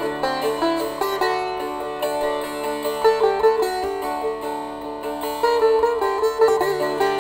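Instrumental background music: a plucked string melody with bending notes over a steady low drone.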